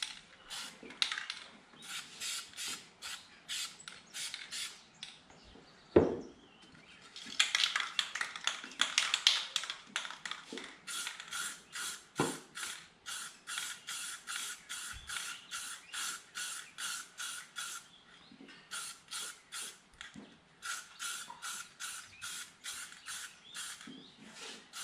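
Aerosol spray paint can being shaken, its mixing ball rattling in quick, even clacks about three a second. There is a sharp knock about six seconds in.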